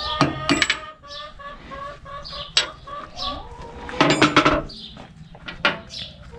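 A hen clucking in a quick run of short, repeated notes, with a few sharp clinks mixed in.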